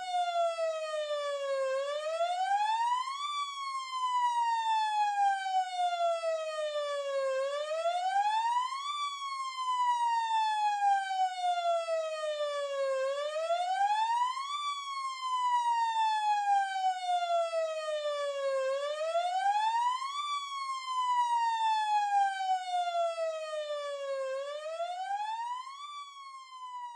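Fire truck's electronic siren sounding a slow wail: the pitch climbs quickly for about a second and a half, then falls slowly for about four seconds, repeating about five times.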